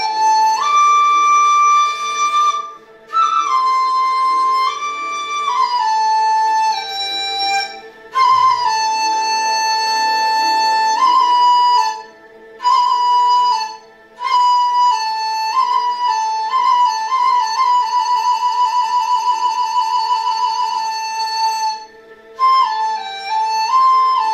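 Dizi (Chinese bamboo transverse flute) playing a slow folk melody in phrases separated by short breath pauses, with a long trill about three-quarters of the way through. A steady lower tone continues underneath through the pauses.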